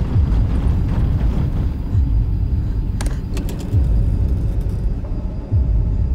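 Dramatic sound design: a steady low rumble with a deep falling boom repeating about every two seconds, and a sharp click about three seconds in.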